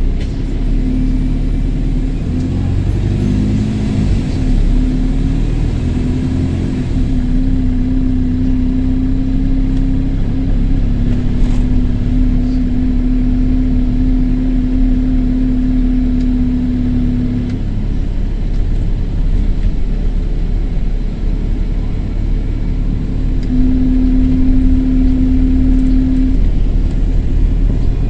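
Double-decker bus engine running under way, heard from inside the bus, with a burst turbo exhaust. A steady low drone holds for most of the first seventeen seconds, drops away, and comes back for a few seconds near the end.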